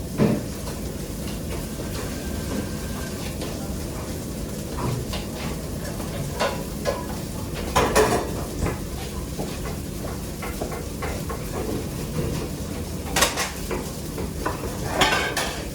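Kitchen work sounds: metal pots, pans and utensils clattering and knocking now and then over a steady low background noise, with the loudest clanks about eight and thirteen seconds in and near the end.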